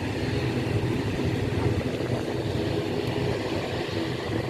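Aircraft engines running with a steady low drone that does not rise or fall.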